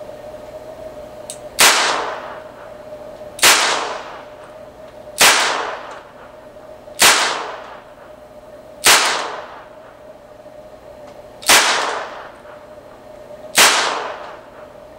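Arminius .22 LR revolver fired double action: seven sharp shots about two seconds apart, with a longer pause before the last two, each ringing briefly off the walls of a room.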